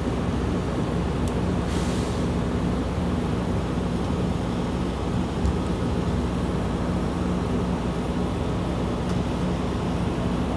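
Steady engine drone with a low hum under an even rushing noise, from fire apparatus running its pump during firefighting. A short hiss comes about two seconds in, with a few faint clicks.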